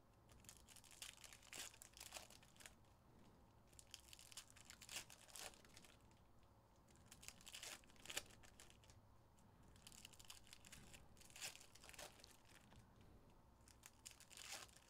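Faint crinkling and tearing of trading-card pack wrappers being opened and crumpled by hand, in scattered clusters of short crackles.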